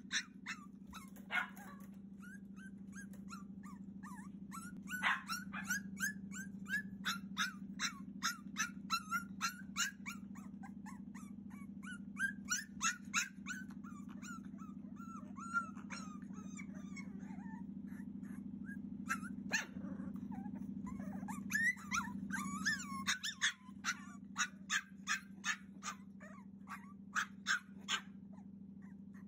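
Six-week-old Cavalier King Charles Spaniel puppy crying to be let out of its pen: runs of short, high-pitched yips at about two a second, broken by whining, over a steady low hum.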